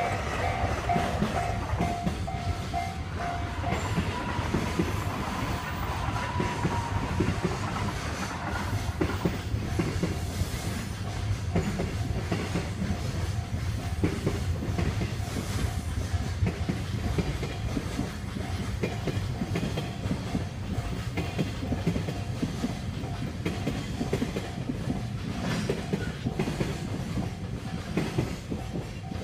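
Long freight train of container wagons rolling past: a steady low rumble with the wheels clicking over the rail joints. A repeating pulsed tone sounds over it for the first few seconds.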